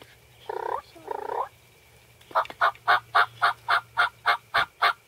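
Turkey calling: two short calls under a second in, then a fast even run of yelps, about four a second, starting about two seconds in.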